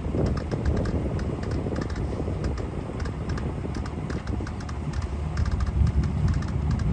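Dry hay rustling and crackling in quick irregular clicks as a bale is pulled apart by hand, over a low rumble that swells and dips.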